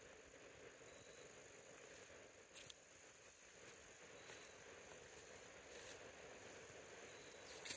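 Near silence: faint outdoor quiet with a thin, steady high insect trill and a few soft clicks.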